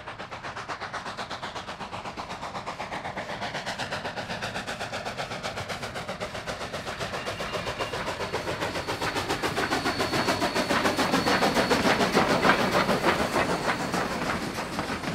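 K-36 narrow-gauge 2-8-2 steam locomotive working steam, with a rapid, even chuff of about four to five exhaust beats a second. It grows louder as the engine approaches and passes, then fades into the rumble and clatter of the passenger coaches' wheels on the rails.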